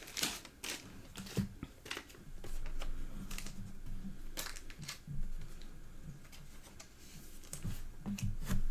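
Trading cards and their foil packs being handled: a scattering of soft clicks, taps and light rustles.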